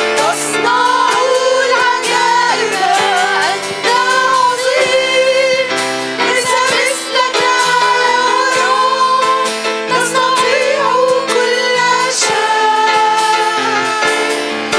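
Women's voices singing an Arabic praise song together, backed live by a small worship band of accordion, electric guitar, keyboard and drums.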